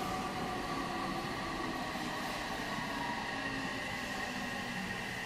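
Odakyu 8000 series electric commuter train running along the track, with a steady rolling noise and a high whine held throughout.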